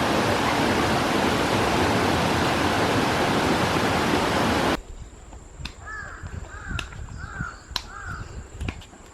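Rushing waterfall and stream water, a loud steady wash that cuts off abruptly about five seconds in. A much quieter stretch follows, with a crow cawing four times in quick succession and a few sharp clicks.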